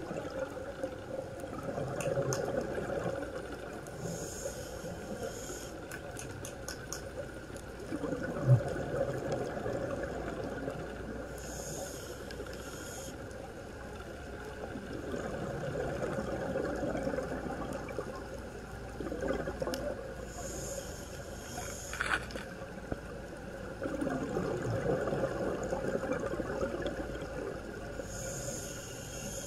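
Scuba diver breathing through a regulator underwater: a hiss on each inhale alternating with a bubbling rumble on each exhale, about four breaths in all, one every seven or eight seconds. A single sharp click about eight seconds in.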